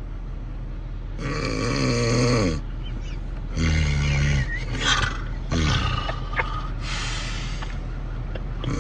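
Loud, rasping snoring: several heavy snores in a row, each lasting about a second.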